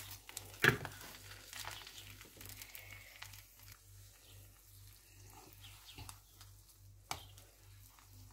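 Faint sizzling of oil in a frying pan under a folded, meat-filled flour tortilla, with a few soft knocks as it is pressed and handled with a wooden spatula.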